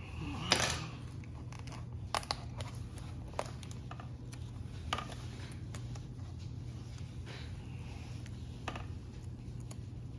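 Hands working a thin gauge-face overlay and plastic cluster parts: scattered light clicks, taps and crinkling, the sharpest about half a second in, over a steady low hum.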